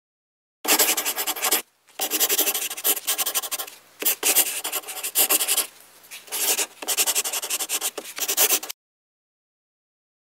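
Crayon scribbled rapidly back and forth on paper, a scratchy rubbing in several runs of quick strokes. There is a short break just before two seconds and a quieter stretch around six seconds, and the scribbling stops a little before nine seconds.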